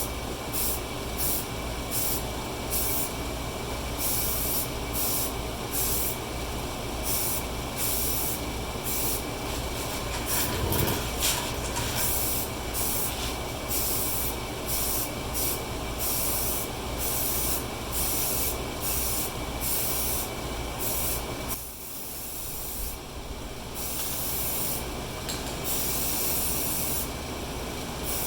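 Aerosol spray-paint can hissing in many short bursts, one after another with brief gaps, over a steady low hum.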